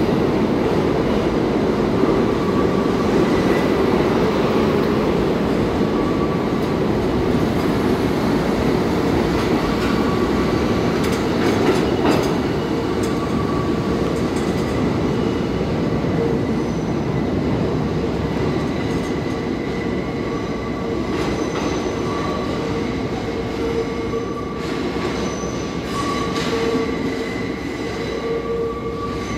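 R32 subway train pulling out and running off into the tunnel: a steady rumble of steel wheels on the rails, slowly fading, with wheel squeal whistling in and out throughout and a few sharp clicks from the track.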